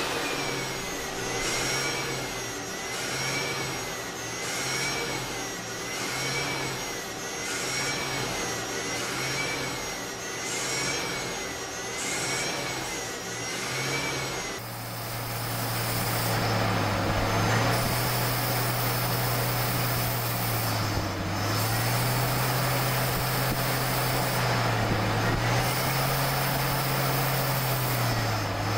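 CNC lathe turning parts: steady machine noise with a whining tone that rises and falls in a regular cycle a little over once a second. About halfway it changes abruptly to a different turning cut with a lower hum that wavers slowly.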